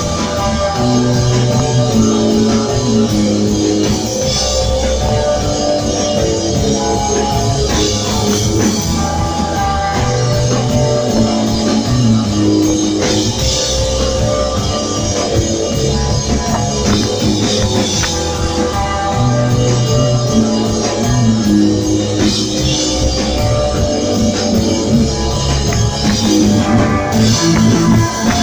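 Rock band playing an instrumental desert rock passage: electric guitar, bass and drum kit, loud and continuous, with cymbal crashes every few seconds.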